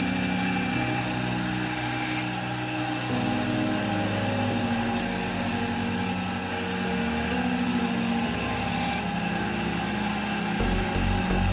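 Band saw running and cutting through a stack of thin wooden boards, a steady, even buzz throughout.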